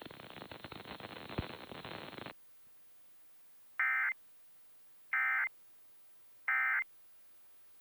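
Emergency Alert System End-of-Message (EOM) signal: three short, identical bursts of SAME digital data tones, a little over a second apart, marking the end of the alert. They follow about two seconds of crackly hiss that cuts off suddenly.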